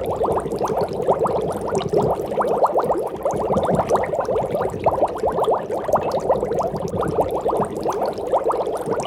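Aquarium water bubbling: a steady, dense stream of small bubbles burbling, with many quick rising blips over a low rumble.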